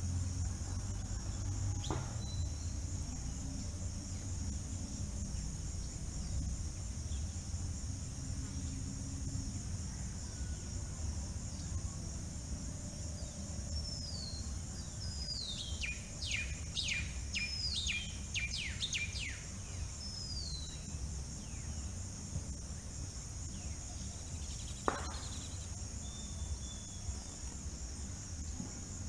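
Crickets trilling steadily and high. About halfway through, a bird sings a quick run of about eight down-slurred whistled notes.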